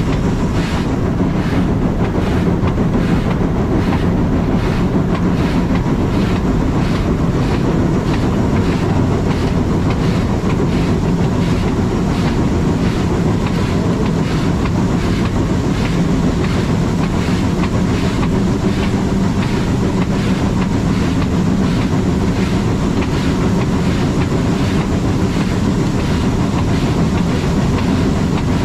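Steam train on the Furka rack railway running steadily along the track: a constant rumble with an even, rhythmic beat.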